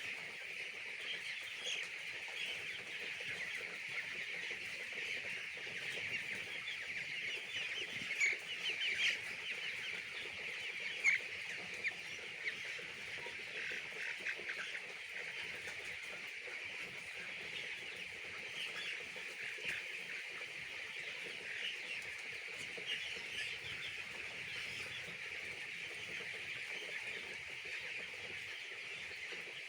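A large flock of young chicks peeping continuously, many high chirps overlapping into a steady chorus, with a few louder chirps standing out around eight to eleven seconds in.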